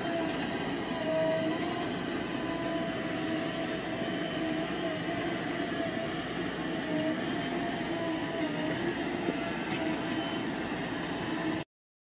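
JCB 3DX Xpert backhoe loader's diesel engine running under load as it loads sand: a steady drone with a wavering whine over it. It cuts off abruptly near the end.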